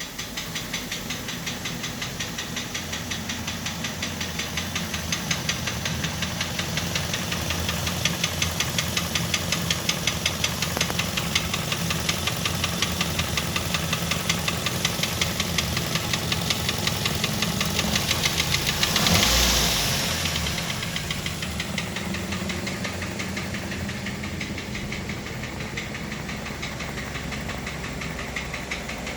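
Toyota 3SZ-VE 1.5-litre four-cylinder petrol engine running with a steady, rapid, rhythmic knock, which the owner takes for piston knock. About two-thirds of the way through comes a brief, louder rush of noise.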